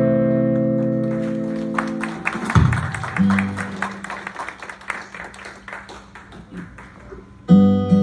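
A held guitar chord from the band rings out and fades, followed by a few seconds of scattered clapping. Strummed acoustic guitar chords start up again near the end.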